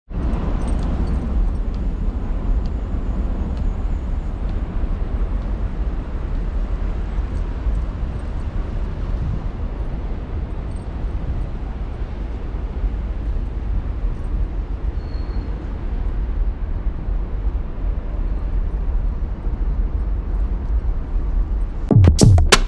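Steady outdoor rumble of road traffic and wind, strongest in the low end, with no distinct events. Music comes in just before the end.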